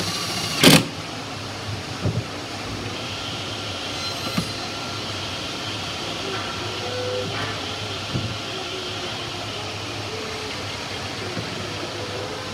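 Steady background rumble and hum of the wood shop. About half a second in comes a short, loud whir from a handheld drill driving into the wooden baseboard. A few faint knocks follow.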